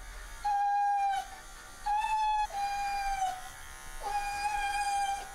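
A Keeshond–American Eskimo mix dog crying out in four long, high-pitched, steady whines, the distress of an anxious dog having its paw pads shaved. A faint electric clipper buzz runs underneath.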